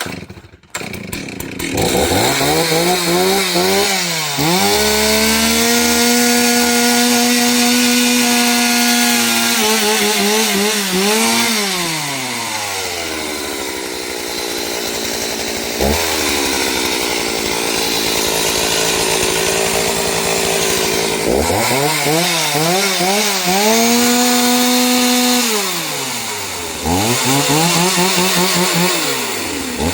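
Chainsaw revved to a high, held pitch while cutting wood, dropping back between cuts. There are long full-throttle runs early on and about three-quarters of the way through, with a lower, rougher stretch in the middle and a last rev near the end.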